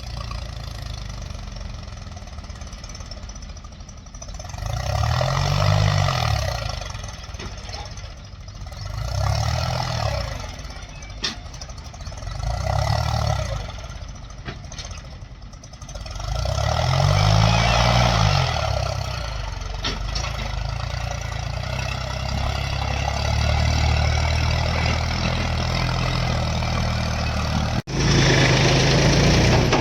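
Backhoe loader's diesel engine running at a steady idle and revving up and dropping back four times, each rev rising and falling over a second or two, as the machine works its loader.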